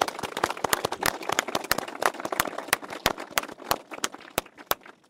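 A small group applauding by hand: dense clapping that thins to a few separate claps and stops near the end.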